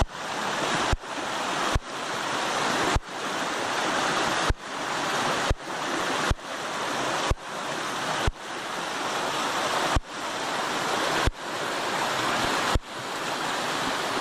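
Loud rushing water of a flood-swollen river, broken into a rapid run of short pieces about a second long, each starting with a click and swelling before the next cut.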